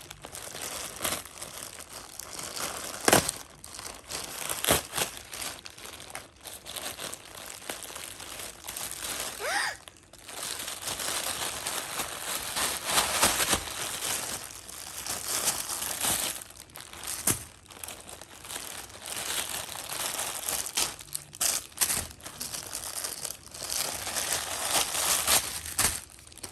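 Plastic packaging crinkling and rustling as it is handled and torn open, with frequent sharp crackles, the loudest about three seconds in.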